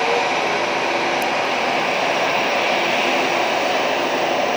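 Jet airliner engines running, a steady loud rushing noise with a faint hum under it, as a passenger jet moves close by on takeoff, landing or taxi.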